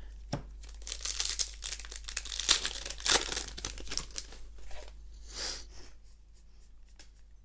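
A Magic: The Gathering booster pack's wrapper crinkling and tearing open, with the rustle and clicks of the cards being pulled out and handled, dying down about two seconds before the end.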